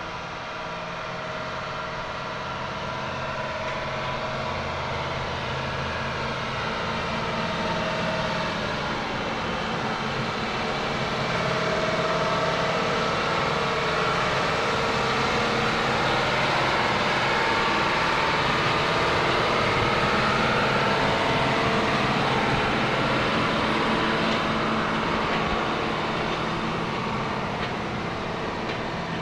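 Vehicle engine running steadily as it drives along, with a continuous hum and road noise that swells a little midway and eases near the end.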